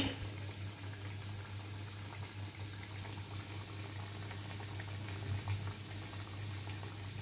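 Moong dal kachoris deep-frying in oil in a kadhai, a steady gentle bubbling sizzle with faint crackles, the slow fry on a low flame that makes them crisp. A steady low hum runs underneath.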